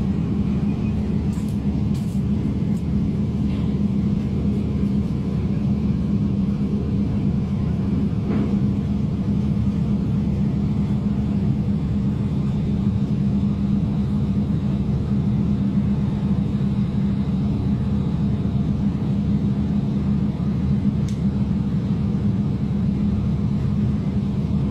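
Steady low mechanical drone that holds even throughout, with a strong hum near the bottom of the range.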